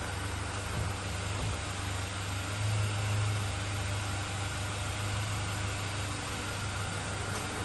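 Maxus pickup truck's engine running at a low, steady idle as the truck creeps forward, swelling slightly about three seconds in.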